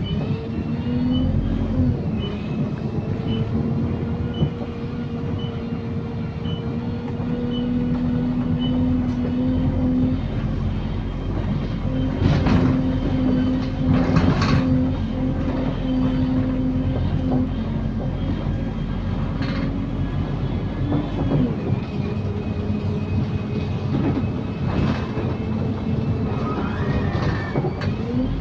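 Optare Solo SR single-deck bus with a Voith automatic gearbox under way, heard from inside: a steady drivetrain drone and whine that shifts in pitch near the start, about three-quarters through and near the end, as the gears change. Body rattles, with several sharp knocks in the middle. A faint high beep sounds about once a second for the first nine seconds.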